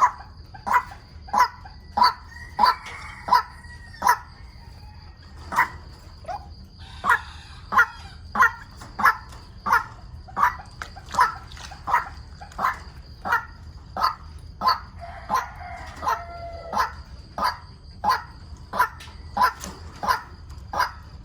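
White-breasted waterhen calling: one harsh note repeated steadily about one and a half times a second, with a brief pause partway through.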